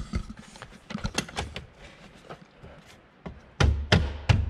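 C6 Corvette's plastic center-console trim being pressed and snapped back into place: a series of clicks and knocks, with the loudest thumps near the end.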